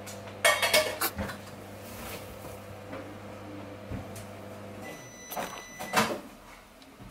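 Knocks and clatters in a stainless steel animal hospital kennel: a cluster just after the start and two more near the end, over a steady low hum that stops about five seconds in.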